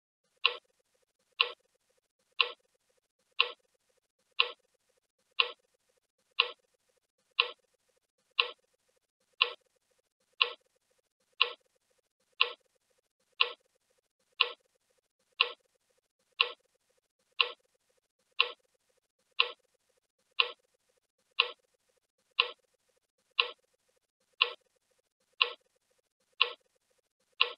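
Countdown timer sound effect ticking once a second, a short sharp clock tick each second, over a faint steady hum.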